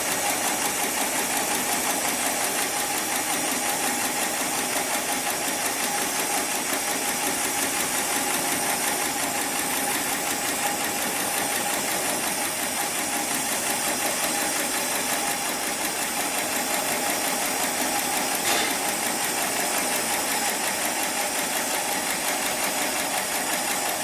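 Heavy-duty programmable pattern sewing machine running steadily as it sews, with one sharp click about three-quarters of the way through.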